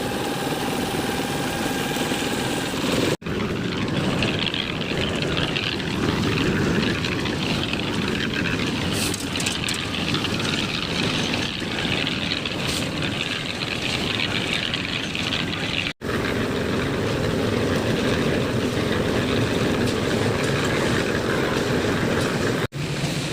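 An engine running steadily with a dense mechanical hum, typical of machinery at a concrete slab pour. It breaks off abruptly about three seconds in, around sixteen seconds and near the end, its tone shifting after each break.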